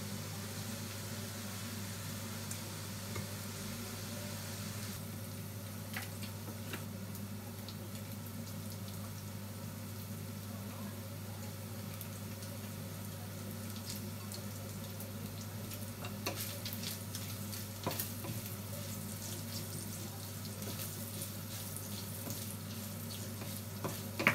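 Pork and onion frying in a pan with a steady sizzling hiss over a constant low hum. A few light clicks and knocks come in the second half, the last one from a wooden spatula stirring the pan near the end.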